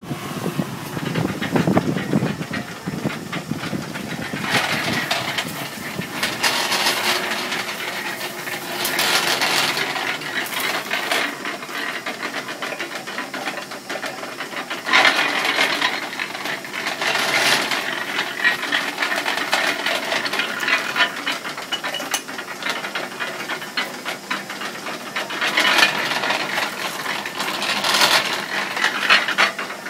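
Sugarcane juice mill (moenda) running: metal gears and rollers rattling and grinding steadily, with about six louder crunching stretches as cane stalks are pressed through the rollers.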